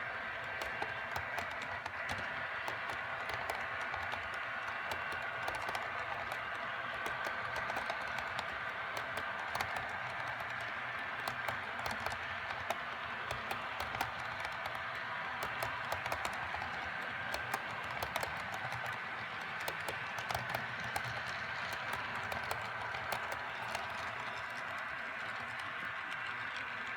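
HO scale EMD SD40-2 model diesel locomotives' ESU LokSound decoders playing a steady diesel engine drone through their small onboard speakers, with frequent light, irregular clicks from the model train rolling over the track.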